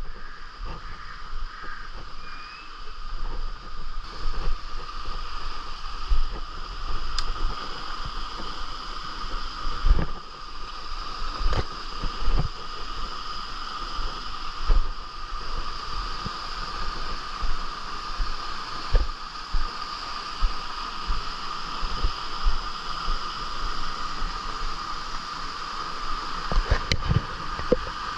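Steady outdoor ambience of running stream water under a continuous high-pitched drone, with irregular low knocks of wind and handling on the microphone.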